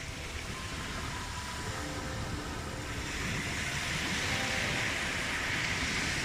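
Ocean waves breaking and washing on the shore, the wash swelling over the second half. Soft held music notes sit faintly underneath.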